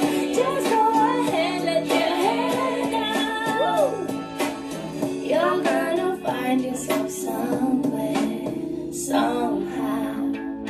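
A recorded song playing: a woman singing a melody over instrumental backing, with sustained accompanying notes underneath.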